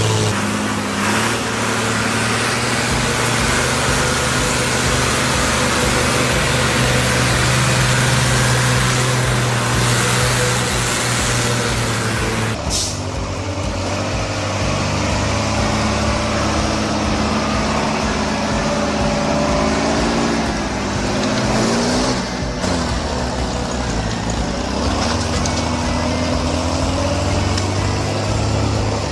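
A heavy machine's engine running steadily under load, changing abruptly twice along the way.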